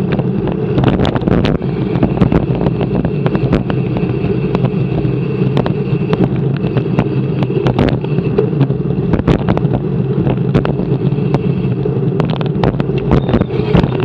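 Wind rushing over an action camera's microphone while riding at speed in a pack of racing bicycles, a steady low rush with frequent sharp clicks and rattles from the bikes and mount.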